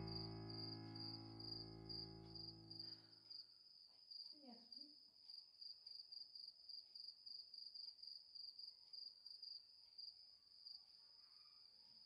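A cricket chirping steadily in quick, even pulses. A sustained musical chord fades out over the first three seconds.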